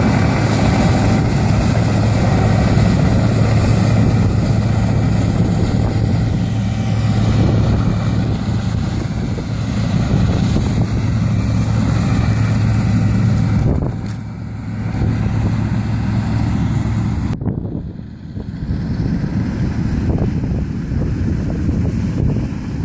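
Tracked Laverda M306 combine harvester running steadily while harvesting, a loud low engine hum that weakens about two-thirds of the way through as the machine pulls away. Near the end the sound switches suddenly to a low wind rumble on the microphone.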